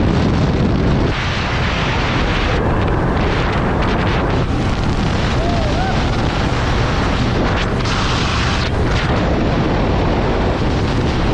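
Loud, steady wind buffeting on the microphone of a moving motorcycle, with engine and road noise underneath.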